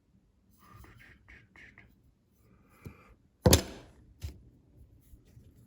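A sharp thunk about three and a half seconds in, followed by a lighter knock, with faint handling sounds around them.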